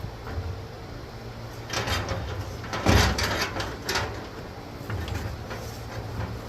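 A cluster of knocks and rattles with one heavy thump about three seconds in, over a low steady hum.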